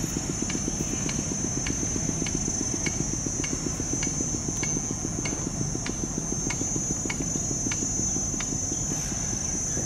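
Diesel engine of a passing dry-cargo river barge running steadily, a fast low throb, with a light tick repeating about three times every two seconds. A steady high-pitched insect buzz sits above it.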